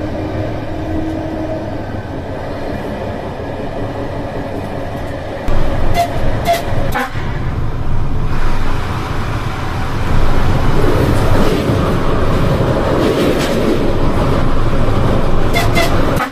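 Running noise of a CityElefant double-deck electric train, heard in the driver's cab: a steady rumble that steps up about five seconds in and grows louder in the second half. Short high toots come twice about six seconds in, and twice more near the end.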